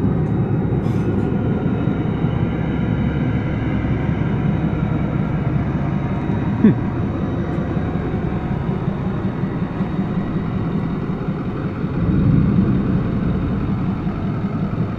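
An engine running steadily with a low, even rumble, with one short sharp click about six and a half seconds in.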